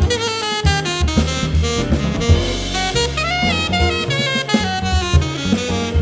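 Live jazz quartet playing: a saxophone runs a quick melodic line, note after note, over drum kit, piano and bass.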